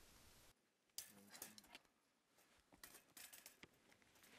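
Faint sharp clicks and snips of pliers on barbed wire: one about a second in and a cluster around three seconds in, over near silence.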